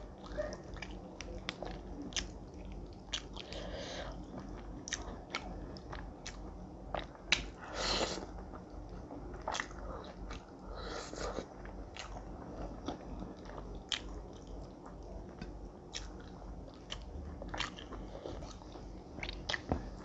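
Close-miked mouth sounds of a person eating rice, fish and curry by hand: chewing, lip smacks and frequent short crunchy clicks. A louder burst of noise comes about eight seconds in and another around eleven.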